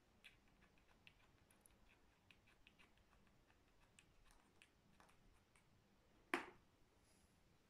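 Faint, scattered ticks of a cat's paws and claws on a tiled floor as it plays, then one sharp tap about six seconds in as a small ball drops onto the tiles.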